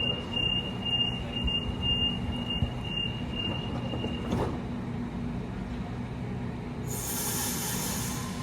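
A train running through the station with a steady low rumble. A high-pitched beep repeats about twice a second for the first three or four seconds, and a loud hiss comes in near the end.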